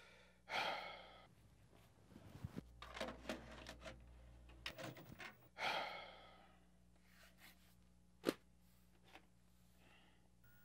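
A man sighs heavily twice, about five seconds apart, each breath fading out over a second or so. Between the sighs come small clicks and knocks, and a single sharp click sounds near the end.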